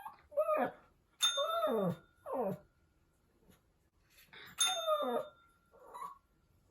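Pomeranian puppy howling: about five whining howls with gaps between them, each sliding down in pitch, the longest about a second in and about four and a half seconds in, and a short one near the end. The uploader frames it as howling from missing its mom, a sign of separation anxiety.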